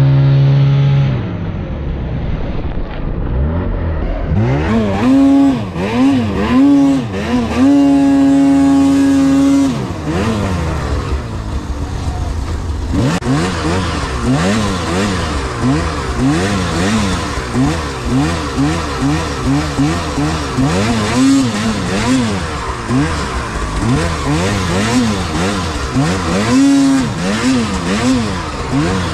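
Snowmobile engine revving up and down over and over under throttle, held at high revs for about two seconds around eight seconds in.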